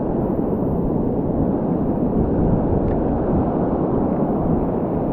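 Ocean surf breaking and washing around the listener's feet, a steady loud rush, with wind buffeting the microphone in a low rumble.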